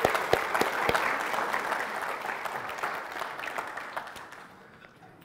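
Congregation applauding in welcome, a dense clapping that gradually dies away toward the end.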